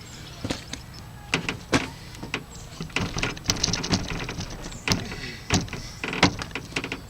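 A cast-iron bench vise being cranked down hard by its handle, tightened to test a stick-welded crack repair. It gives a string of sharp metal clicks and knocks, with a scraping stretch in the middle.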